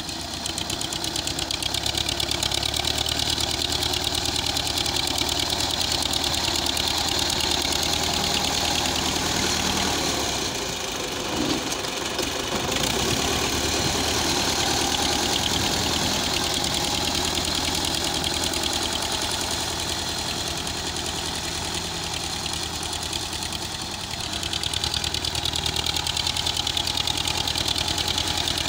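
Belarus MTZ-50 tractor's four-cylinder diesel engine running steadily under load while the front blade pushes soil. It turns briefly quieter about eleven seconds in.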